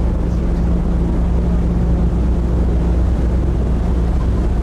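Steady low drone of a car ferry's engines and machinery, a constant hum with an even hiss over it.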